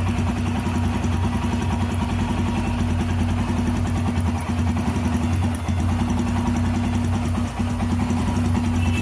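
Motorcycle engine idling steadily as it warms up after a start.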